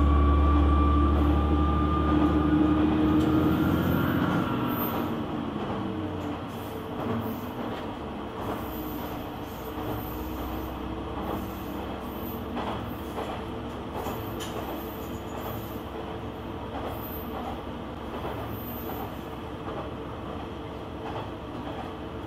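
KiHa 120 diesel railcar running: for the first four seconds or so the diesel engine pulls loudly with a slowly rising whine. The engine then drops back and the car coasts, the wheels running on the rails with irregular clicks and knocks.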